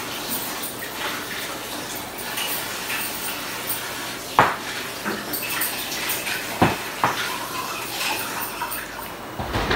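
Crockery and cutlery clinking as dishes are handled at a kitchen counter, with three sharper knocks of plate on plate or counter, the clearest about halfway through, over a steady hiss.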